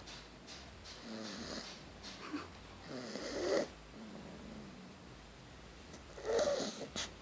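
Snoring: three drawn-out snores a couple of seconds apart, the loudest about halfway through and near the end.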